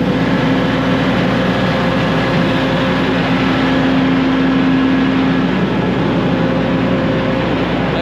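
Combine's diesel engine running steadily at close range, a low hum with a steady tone that grows louder for a couple of seconds midway.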